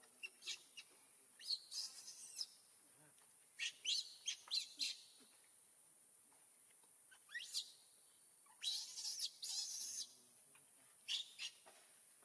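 Short, high-pitched chirping calls in scattered clusters, some sweeping upward in pitch, with a longer, harsher squealing call about nine seconds in.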